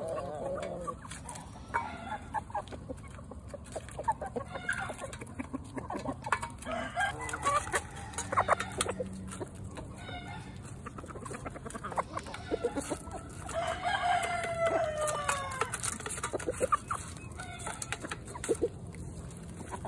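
Chickens clucking as they peck boiled crawfish out of a stainless steel pan, with many sharp taps and clicks from beaks on the shells and the metal. About two-thirds of the way through, a rooster gives one long crow that falls in pitch at the end.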